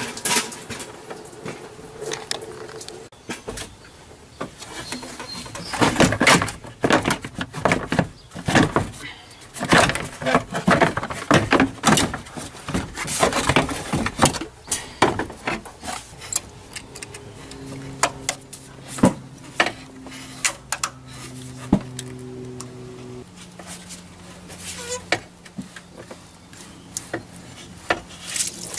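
Irregular knocks, scrapes and clatter of a plastic fan shroud and fan clutch being worked out of an engine bay, busiest in the middle. A faint steady hum follows in the second half.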